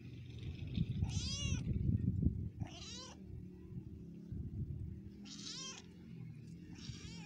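Young tabby cats meowing: four separate meows, each rising then falling in pitch, over a low rumble that is loudest in the first few seconds.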